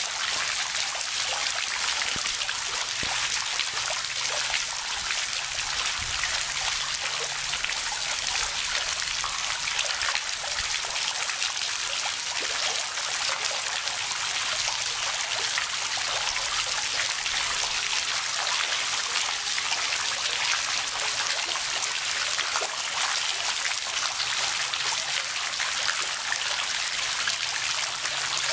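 Water trickling and running steadily, with fine splashing like a small stream flowing over stones.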